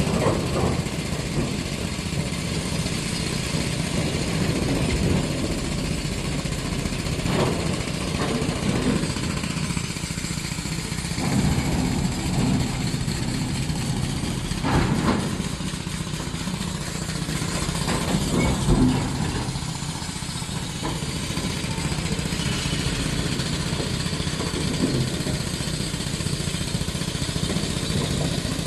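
Heavy diesel engine of earthmoving machinery running steadily under light load, with a few short clanks and knocks now and then.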